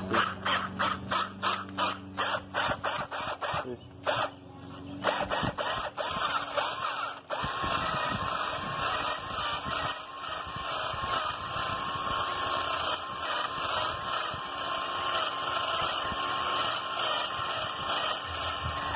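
Cordless drill working: for the first several seconds it goes in rapid clicks, about five a second, then it runs steadily under load, drilling.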